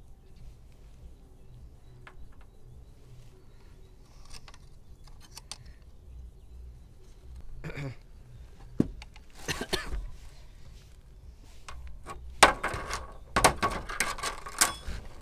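Scattered metallic clicks and scrapes of a tool working the lower and upper gear-oil screws on the gearbox housing of a Hangkai 4 hp outboard motor's leg. They are sparse at first and come thick and fast in the last few seconds.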